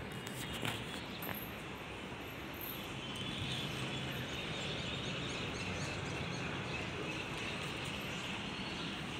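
Steady outdoor ambient noise with faint bird chirps, growing a little louder about three seconds in; a couple of light knocks in the first second and a half.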